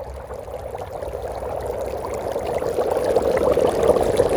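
Dry ice bubbling and fizzing vigorously in water, a dense crackly gurgle that grows steadily louder.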